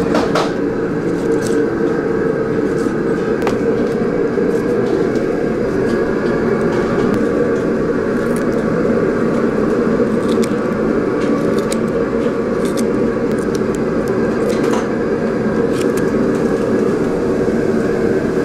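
A steady machine hum made of several held tones, running evenly, with a few small clicks and taps scattered over it.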